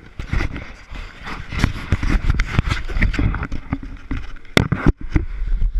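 Handled action camera: irregular knocks and rubbing on the camera body and microphone, over a low wind rumble.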